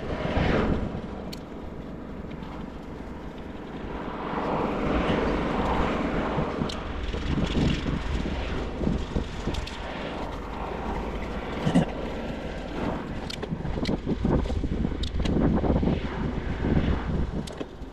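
Wind rushing over an action camera's microphone and tyre rumble from a bicycle in motion, swelling and easing, with a few sharp clicks.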